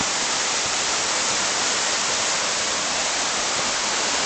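Mountain waterfall splashing down onto rocks and water: a steady, loud rushing hiss that carries most in its upper range.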